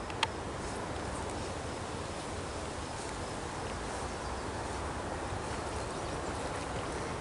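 Steady outdoor ambience: an even low rumbling hiss, with one sharp click about a quarter of a second in.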